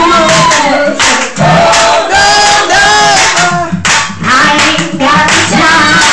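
Loud singing into a handheld microphone over music, with hands clapping along.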